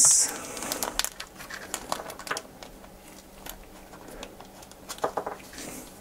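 Small plastic parts bag torn open and crinkled, with tiny metal screws and a standoff tipped out, clicking and tapping onto the table. A short sharp crinkle at the very start, then scattered light clicks.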